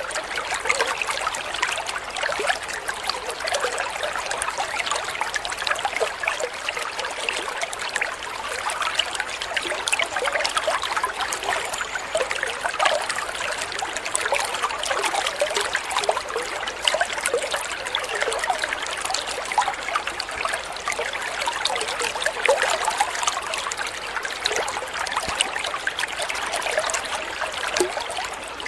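Water trickling and splashing steadily into an aquarium from a small waterfall outflow, a continuous crackle of fine splashes.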